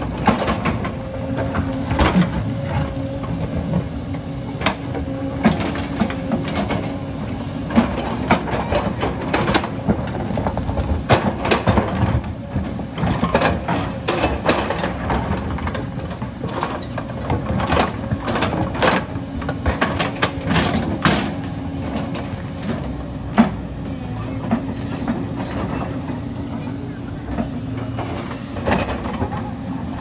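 JCB tracked excavator's diesel engine running steadily with a constant hum, while the bucket and tracks scrape and clank against rock and dirt in many short knocks as it digs into the rocky hillside.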